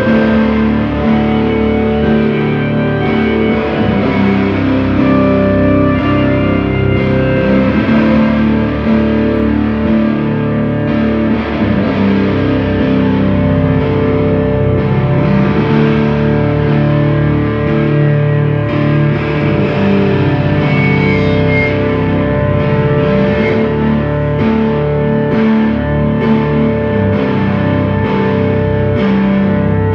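Live drone music: a Casio keyboard holds steady sustained notes under a distorted electric guitar, a Travis Bean TB1000S, run through effects. The drone is loud and unbroken.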